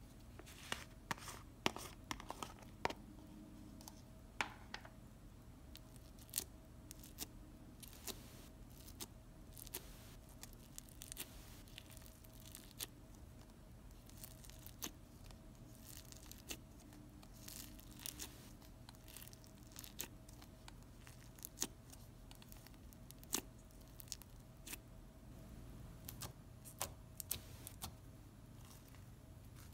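Floam slime, packed with small foam beads, being squeezed, stretched and poked with fingers: irregular sharp crackles and pops from the beads.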